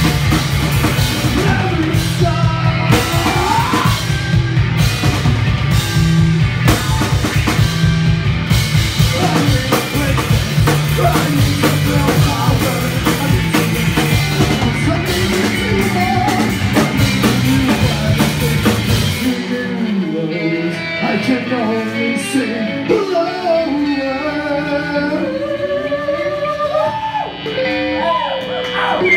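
Punk rock band playing live and loud: electric guitar, bass guitar and drum kit. About two-thirds of the way through, the bass and drums stop, leaving the electric guitar alone with bending, wavering notes.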